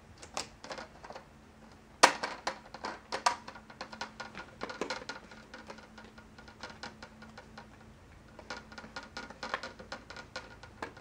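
Plastic screen bezel of a Lenovo IdeaPad Z570 laptop being pressed onto the display lid, its clips snapping into the tabs: one loud snap about two seconds in, then a long run of smaller clicks and snaps.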